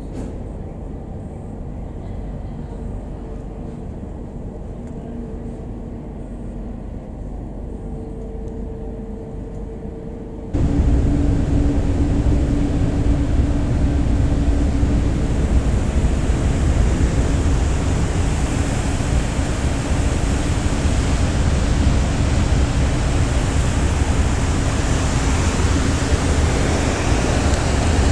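Passenger ferry's engines running as a steady low drone with a faint hum. About ten seconds in, the sound jumps abruptly to a much louder, even rushing noise with the engine hum still underneath.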